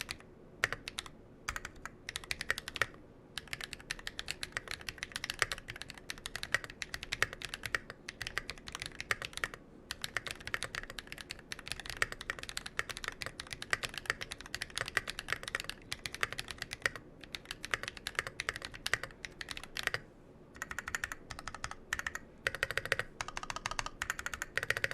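Fast, continuous typing on a Massdrop ALT high-profile mechanical keyboard fitted with Holy Panda tactile switches (YOK Panda housings with Halo True stems), each keystroke a crisp click. The typing pauses briefly a few times and turns sparser near the end.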